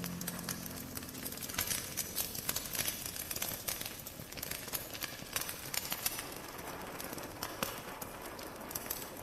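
The last held note of music fades out in the first second, followed by a run of irregular sharp clicks and crackles.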